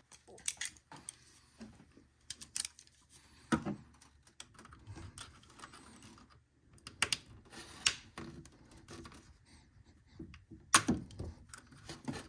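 Pliers clicking and scraping on a spring-type hose clamp as it is squeezed and worked along a rubber radiator hose: irregular sharp metal clicks with faint handling noise between them.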